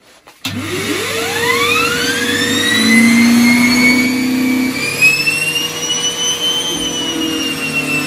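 A Numatic Henry tub vacuum cleaner is switched on about half a second in. Its motor spins up in a rising whine that levels off after a couple of seconds and then runs steadily, drawing air through a Turbo Cat air-driven turbo brush head.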